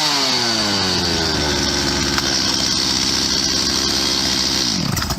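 Stihl MS-250 two-stroke chainsaw engine, freshly rebuilt, dropping from high revs to a steady idle, then dying away as it is switched off near the end.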